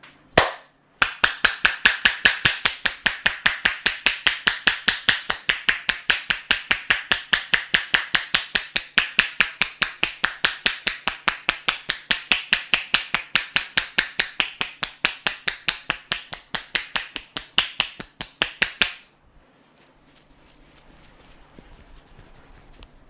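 Massage percussion (tapotement): the barber's hands striking the body in a fast, even rhythm of sharp slaps, about five a second. One strike comes first, then after a short pause the long run starts and stops abruptly a few seconds before the end.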